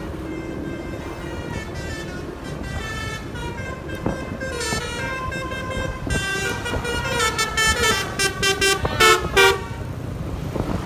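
Basuri telolet musical horn on a motorcycle playing a tune of changing notes. The tune grows louder and ends about nine seconds in with a few short, loud toots, over a steady background of engine and road noise.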